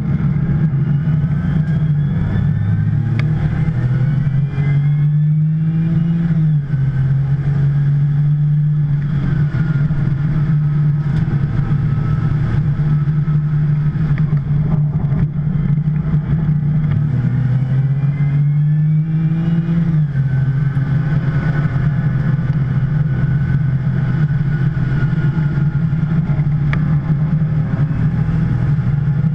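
2010 Porsche 911 Turbo's twin-turbo 3.8-litre flat-six running hard under race load. Its note climbs with the revs and drops sharply at a gear change twice, about six and twenty seconds in.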